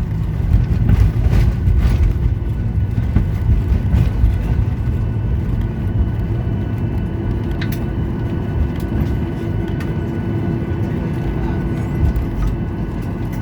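Cabin noise inside a Boeing 737-900ER rolling out after touchdown on a wet runway. A heavy rumble from the wheels and runway eases over the first few seconds as the aircraft slows. Then the steady hum of the CFM56-7B engines comes through, with a single click near the middle.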